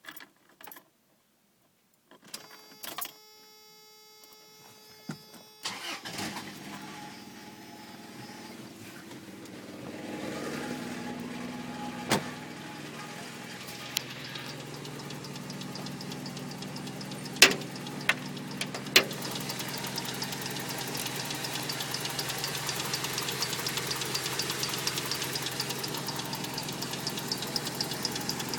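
A steady pitched tone sounds for a few seconds. Then a Toyota 22RE 2.4-litre four-cylinder engine starts, about six seconds in, and runs at idle. A few sharp clicks come through, and in the later part a fast, even ticking can be heard over the engine, which the owner suspects may be the timing chain.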